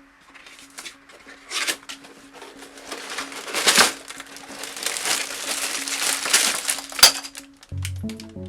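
Plastic packaging crinkling and crackling as it is handled, with a few sharp snaps, the loudest a little after the middle and one near the end. Music with low notes comes in near the end.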